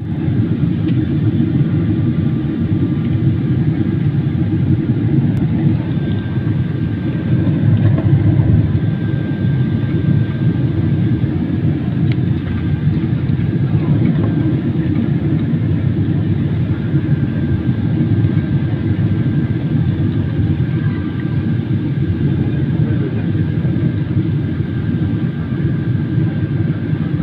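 Steady noise inside an airliner cabin in flight: the jet engines and rushing air heard as an unbroken low noise that holds its level throughout.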